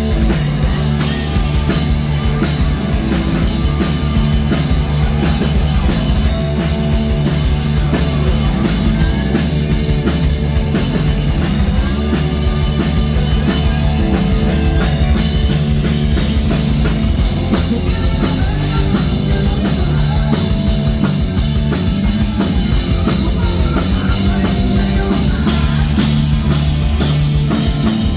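Rock band playing an instrumental passage without singing: drum kit and electric guitar over a steady bass line.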